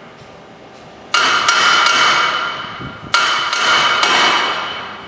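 Two hammer blows on steel, about two seconds apart, each ringing out for more than a second, as the new wheel hub and bearing assembly is driven into the steering knuckle.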